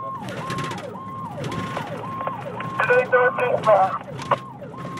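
Electronic emergency-vehicle siren of a fire department vehicle on an emergency response, heard from inside the cab. A steady high tone dips and swoops back up about twice a second. A voice cuts in briefly about three seconds in.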